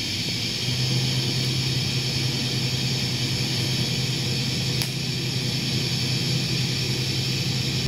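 TIG welding arc running steadily as a bead of 309 stainless filler rod is laid on a steel exhaust pipe joint: a continuous electrical hum with a hiss over it, the hum growing stronger about a second in.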